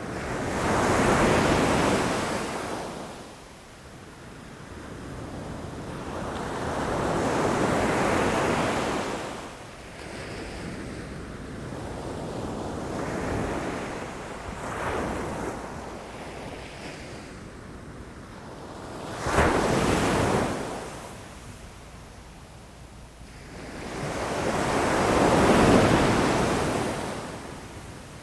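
Ocean waves crashing against rocks, surging and fading every few seconds. A sudden sharp crash comes about two-thirds of the way through, and the loudest surge comes near the end.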